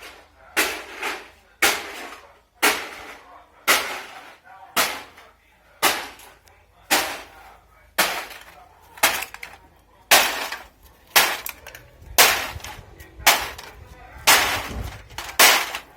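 Empty aluminium drink cans being pounded flat for recycling: sharp metallic blows at about one a second, some struck twice in quick succession, each with a short clanking ring.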